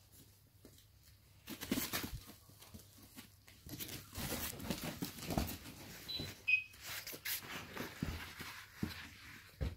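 A Rottweiler puppy and an English bull terrier scuffling over a plush toy on carpet: uneven rustling and pawing with small clicks, starting about a second and a half in, and one brief high squeak a little past the middle.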